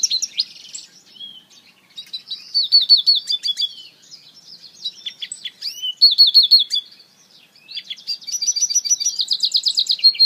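African citril mule (citril finch × canary hybrid) singing. It sings several bursts of fast repeated notes and trills with short pauses between the phrases.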